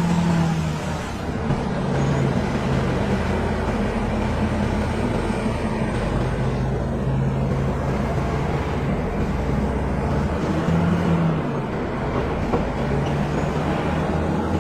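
Caterpillar crawler bulldozer's diesel engine running steadily, its engine note stepping up and down several times as the revs change.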